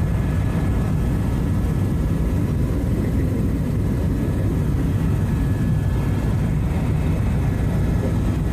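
Helicopter cabin noise in flight: the steady heavy rumble of an Airbus EC130's rotor and turbine heard from inside the cabin, with a faint steady high whine over it.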